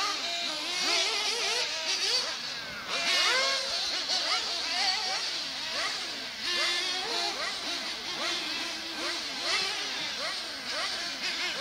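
Small nitro (glow-fuel) engines of 1/8-scale RC off-road buggies, a Kyosho MP9 and a Losi, running around the track: several high-pitched engine notes that overlap, rising and falling again and again as the buggies accelerate and brake.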